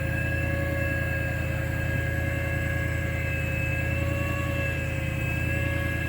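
A steady engine or machine drone, low and even, with a few faint steady whining tones above it.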